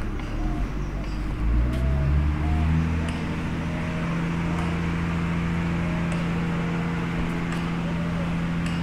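A motor hum that rises in pitch in the first few seconds, then runs steadily at one pitch.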